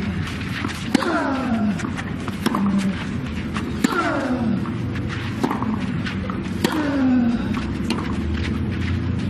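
Tennis rally: sharp racket-on-ball strikes, with a player's voice letting out a falling-pitch grunt on the shots, repeating about every second and a half.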